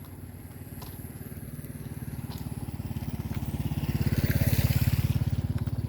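A motor vehicle's engine passing close by: a low, rapidly pulsing run that grows louder to a peak about four and a half seconds in, then fades.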